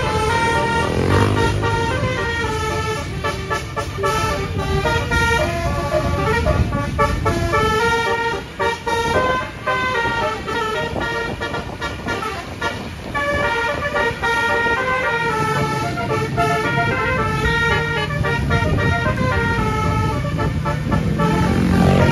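Multi-tone 'basuri' telolet bus horn playing a quick tune of stepped notes, over the bus's engine and road noise.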